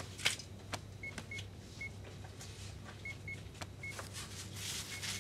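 Short, high electronic beeps from a shop checkout, about eight of them at irregular intervals, over a steady low hum, with scattered clicks and a rustle near the end.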